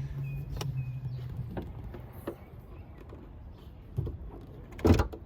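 Trunk lid of a 2003 Buick Regal being worked on its new gas struts: a few light clicks, then a knock and a louder double clunk near the end from the lid and its latch. The lid is not slamming, the sign that the new struts hold it.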